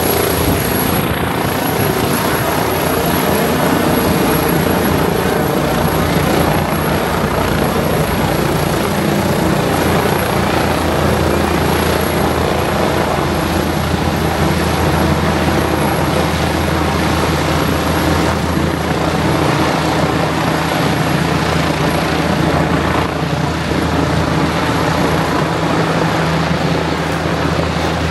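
Air ambulance helicopter running: a steady, loud noise of rotors and engine.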